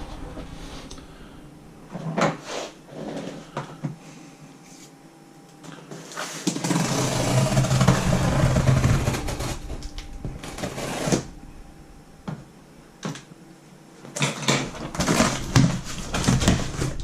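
Cardboard shipping box being opened by hand: short scrapes and crackles of tape and flaps, with a longer continuous rustle from about six to eleven seconds in.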